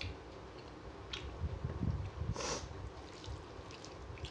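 Close-up eating sounds: soft chewing of a mouthful of rice, with small wet mouth clicks and a short sniff about halfway through.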